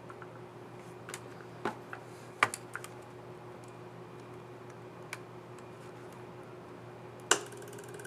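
Sharp plastic clicks from an HP Pavilion 15 EH keyboard keycap and its scissor mechanism being handled, snapped into place and pressed. The clicks come irregularly, about eight of them, loudest about two and a half seconds in and again near the end, over a steady faint hum.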